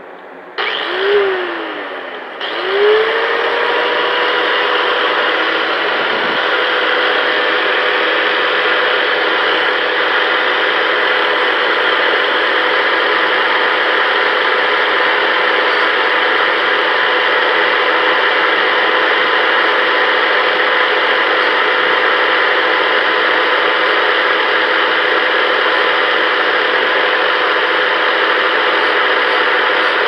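Harbor Freight angle grinder with an abrasive disc: a short burst that rises and falls in pitch, then it is switched on again about two and a half seconds in, spins up to a steady whine and runs on steadily while the disc sands the gouged edge of an aluminum wheel rim.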